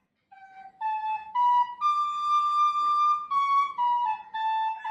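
Penny whistle (tin whistle) playing a slow melody: short notes stepping upward to one long held high note, then stepping back down.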